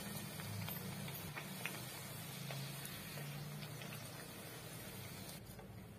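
A puri deep-frying in hot oil in an aluminium kadhai: a steady sizzling hiss with small crackles. The sizzle falls away near the end.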